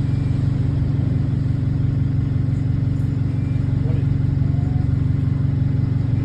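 Bus engine running steadily, heard from on board, with a fast, even pulsing in its low hum from a leaking exhaust.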